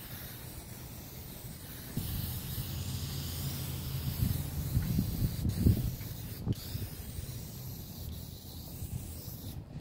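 Aerosol spray can hissing as it is sprayed over a wooden tabletop, over a steady low rumble.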